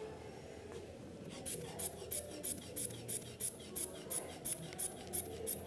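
Rubber inflation bulb of a blood pressure cuff squeezed over and over, starting about a second and a half in: short hissing puffs of air, about three a second, pumping up the cuff.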